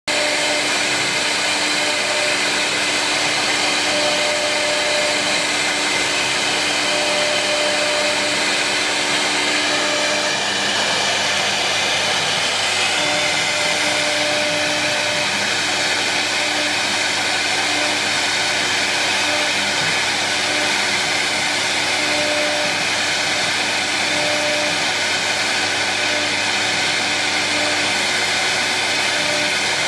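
Wood CNC router running: a steady, high, hissing spindle noise with a lower hum that drops in and out every second or two.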